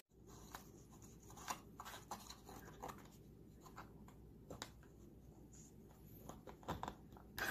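Faint, scattered scratches and taps of a cat's claws and teeth on a cardboard cream carton, a little busier near the end.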